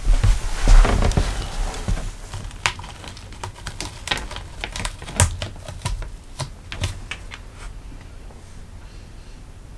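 A cat scrambling and pouncing on a wooden floor: dull thumps in the first second or so, then a run of irregular sharp clicks and taps from its paws and claws and the toys, thinning out near the end.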